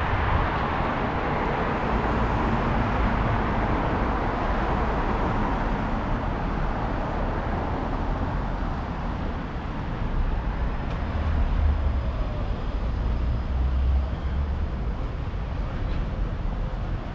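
Street traffic noise: a passing vehicle's tyre noise is loudest at the start and fades away over the first few seconds, over a steady low rumble of traffic.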